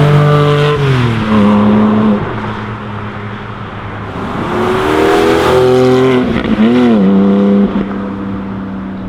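Porsche 718 Cayman GT4's naturally aspirated 4.0-litre flat-six accelerating hard past, its note dropping in pitch about a second in as it goes by. The engine note builds again from about four seconds in, dips briefly near seven seconds, then holds steady.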